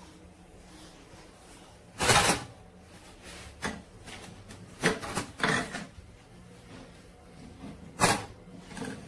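A small hard plastic toy cup knocking and clattering against a toy kitchen and shelf: a handful of separate knocks, the loudest about two seconds in and another sharp one near the end.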